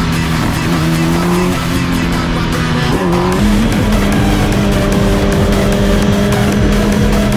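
Motorcycle engine held at steady high revs during a wheelie. About three seconds in, the revs dip and rise again, then hold at a higher, steady pitch.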